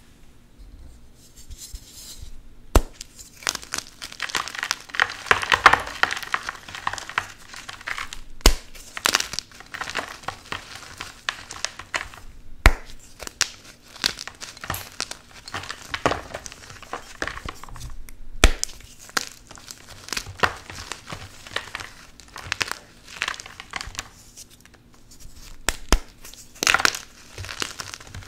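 Blocks of crunchy gym chalk being crushed and crumbled by hand: dense, irregular dry crunching and crackling, with a loud sharp snap every few seconds as a piece breaks away. It starts quietly for the first couple of seconds.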